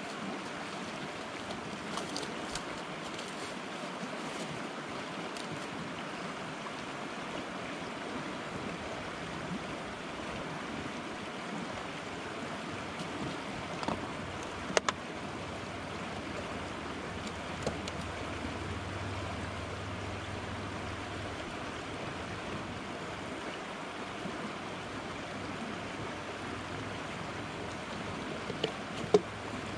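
Steady rushing of the Similkameen River's flowing water, with a few small clicks and knocks about halfway through and again near the end.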